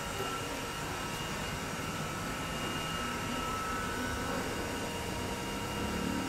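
A steady, even whooshing noise, like a running appliance or air handling, with faint steady whining tones over it; no doorbell ring is heard.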